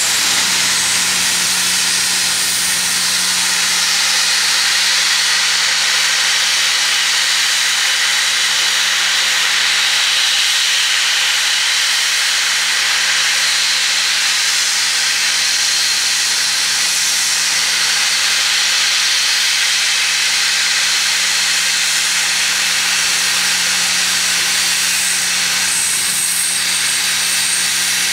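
Loud, steady hiss from a train standing at the platform, starting suddenly and holding unbroken, over a low steady hum. A thin high whistle-like tone joins near the end.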